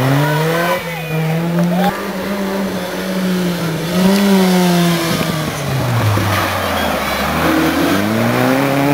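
Rally car engines being driven hard. The engine note climbs and falls through gear changes, drops as a car slows from about five seconds in, then rises again near the end as it accelerates out of the hairpin.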